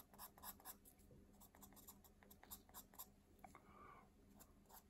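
Faint, short strokes of a drawing pencil on paper, a few a second, made with a very light touch.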